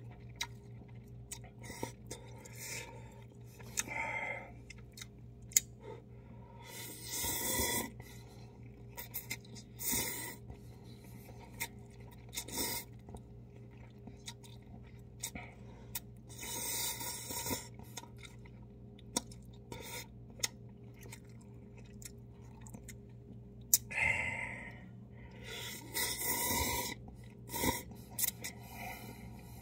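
A person slurping and chewing instant ramen noodles: several hissy slurps about a second long, with wet chewing and small sharp clicks between them. A faint steady low hum runs underneath.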